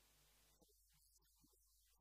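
Near silence: a faint steady low hum and hiss.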